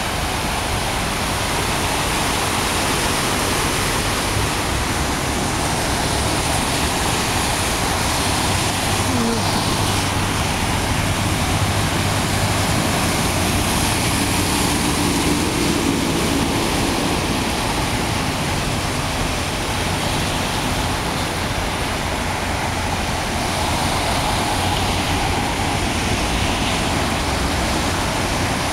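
Steady rushing of rain and floodwater. Near the middle, a vehicle's engine hums as a pickup truck wades through the knee-deep water, pushing up a bow wave.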